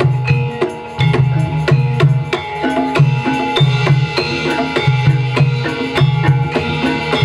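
Live Javanese jaranan gamelan music: kendang hand drums play a fast, steady beat over the ringing tones of the metal gamelan, with a deeper drum pattern repeating about once a second.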